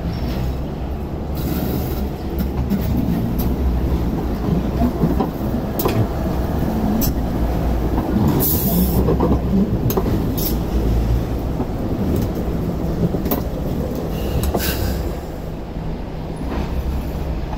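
Hong Kong Light Rail cars running over points and curved track: a steady low rumble with sharp clicks as the wheels cross rail joints and crossings, and a short high wheel squeal about eight and a half seconds in.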